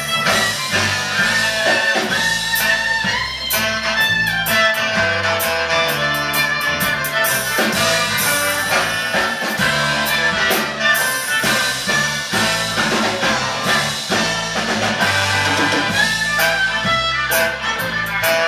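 Live band playing an instrumental passage, with fiddle and saxophone over electric guitar, bass and drums, the cymbals striking steadily.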